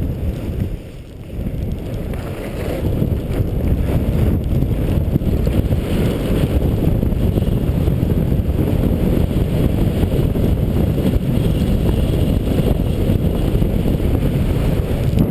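Wind rumbling and buffeting on the microphone of a camera carried by a skier going downhill through powder snow. It builds over the first couple of seconds with a brief dip about a second in, then holds loud and steady as the run picks up speed.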